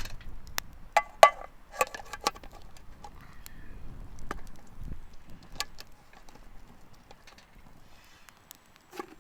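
Irregular sharp knocks and clinks, several with a brief ring, most of them in the first two or three seconds and only a few scattered ones after.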